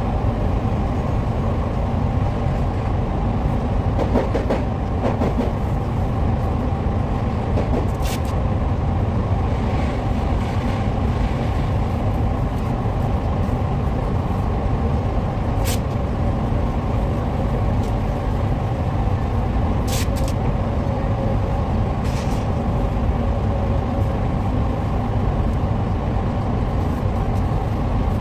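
Steady drone of a paint booth's ventilation fans running, with a few brief sharp ticks over it.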